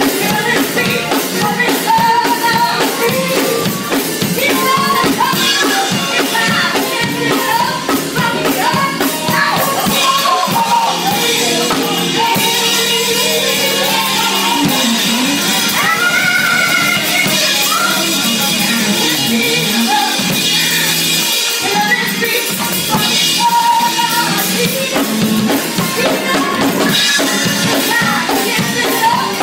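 A woman singing into a microphone, with live piano accompaniment and drums keeping the beat.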